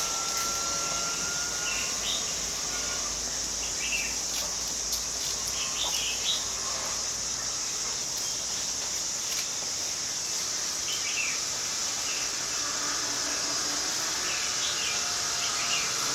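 Short bird chirps scattered through the clip over a steady high-pitched insect drone.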